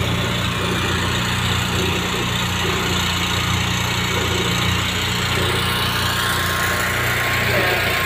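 An engine idling steadily, with an even low hum.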